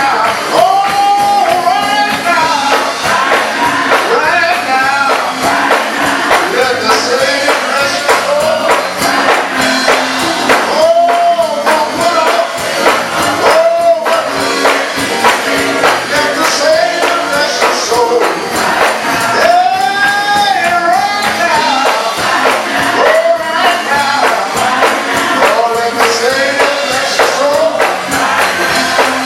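Gospel choir singing with music, with a tambourine jingling along throughout.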